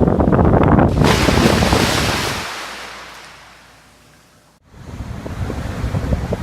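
Sea surf with wind buffeting the microphone. About a second in, a hissing wash of surf swells and then fades away over a few seconds; after a sudden break the low wind rumble comes back.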